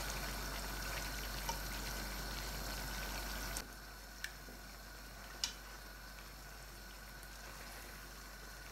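Chicken in masala gravy simmering in a nonstick wok, a steady soft sizzle, with a few light clicks of a metal spoon against the pan. The sizzle drops quieter about three and a half seconds in.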